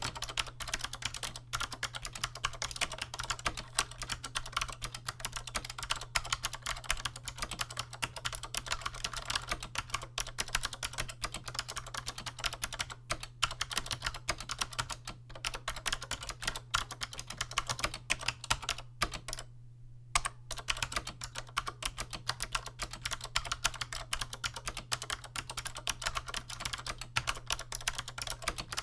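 Fast, continuous typing on a Chicony KB-5581 keyboard with SMK 2nd Gen 'Monterey' clicky switches and PBT keycaps, giving light, crisp clicks. The typing stops for about a second about two-thirds of the way through, then goes on.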